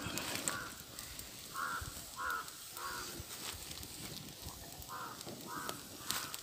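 A bird calling over and over in short separate calls, about seven of them with a gap in the middle.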